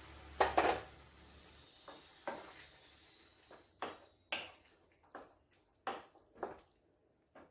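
Wooden spatula stirring cooked green peas into masala in a nonstick pan: a couple of knocks about half a second in, then a series of short scrapes against the pan, spaced roughly half a second to a second apart.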